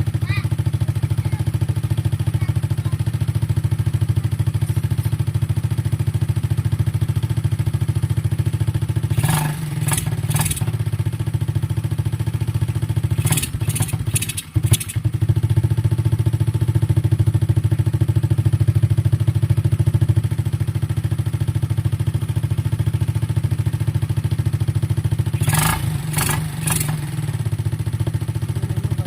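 Rusi Rapid scooter engine idling steadily, its carburettor freshly cleaned and tuned. Small groups of short, sharp clicks sound about a third of the way in, near the middle and near the end.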